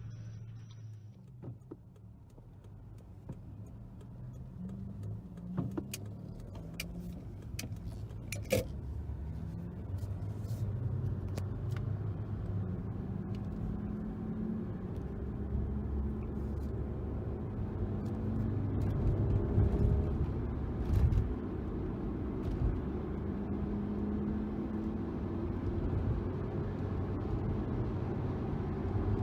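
BMW E92 320i's four-cylinder petrol engine running through its one-off dual exhaust, a low note that wavers and steps in pitch. It grows louder over the first several seconds, with a few sharp clicks on top.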